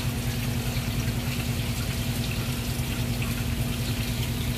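A steady low mechanical hum with a fast, even pulse, like a water pump running, with water running and splashing over it.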